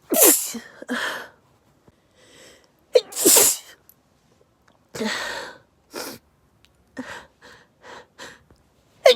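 A person's sneezing fit brought on by pepper: sudden sneezes one after another, the first two the loudest, with shorter quick breaths between them.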